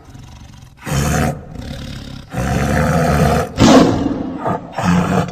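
Big cat roaring and snarling in about four rough, loud bursts, the longest and loudest in the middle of the run.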